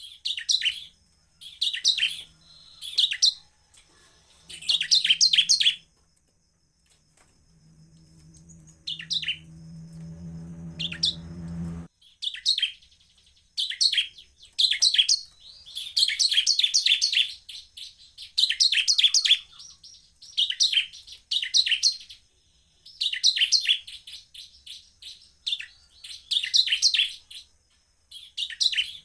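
Bar-winged prinia (ciblek) singing short, fast, high-pitched trilled phrases again and again with brief gaps, with a longer pause in the first half. During that pause a low hum swells for a few seconds and cuts off suddenly about twelve seconds in.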